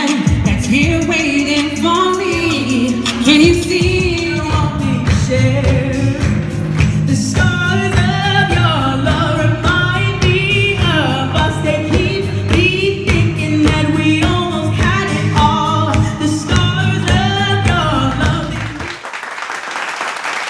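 A woman singing into a microphone over an amplified backing track with a steady beat. The music ends about two seconds before the end, and an audience applauds.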